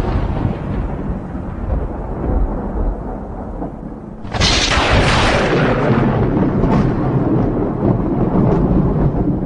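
Thunder: a low rumble dying away, then a sudden sharp crack about four seconds in that turns into a long low rumble.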